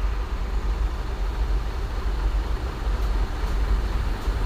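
Hino 500 truck's diesel engine running with a steady low rumble.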